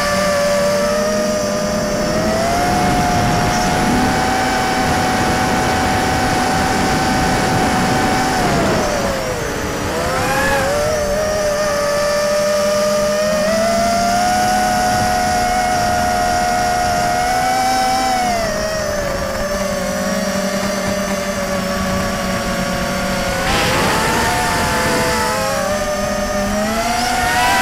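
FPV racing mini quadcopter's brushless motors and propellers whining in flight, the pitch rising and falling with the throttle. The whine dips sharply and recovers about a third of the way in, again past halfway, and near the end.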